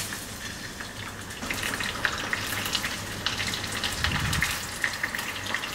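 Wontons deep-frying in a small saucepan of hot oil, sizzling steadily with a constant patter of fine crackles.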